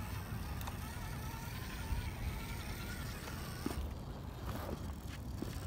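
Stock Gmade Komodo RC crawler's small electric motor and gears whining faintly as it creeps over rock, under a steady low rumble, with a few light knocks from the truck on the rock in the second half.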